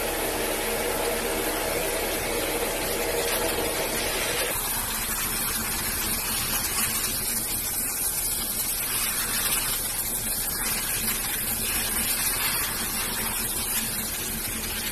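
Steady rushing noise that thins somewhat about four and a half seconds in.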